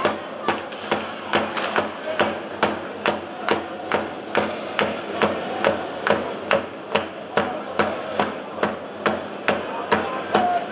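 A fan's drum in the stands beaten in a steady, even rhythm, a little over two beats a second, over a background of crowd noise at an ice hockey rink.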